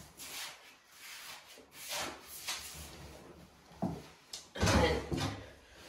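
Paper-hanging brush swishing over damp lining paper on a wall in several soft strokes. About four and a half seconds in, a louder bump and rustle.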